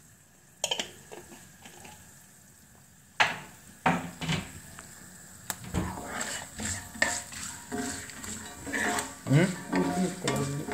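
Wooden spatula knocking and scraping in a cast-iron pan as peanuts, chana dal and cumin seeds fry in hot oil with a faint sizzle. It starts as a few separate knocks, then becomes continuous stirring from about halfway through.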